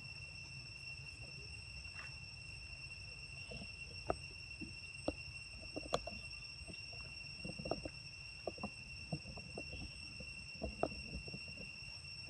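Steady high-pitched insect drone, with scattered short clicks and taps that come more often in the second half.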